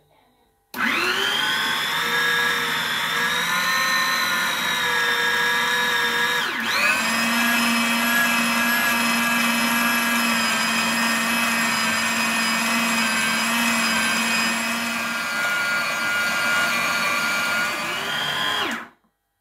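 Electric food processor motor running with a steady whine as its blade chops spiced beef mince into kebab paste. The pitch dips briefly about six seconds in and picks up again, and the motor switches off abruptly near the end.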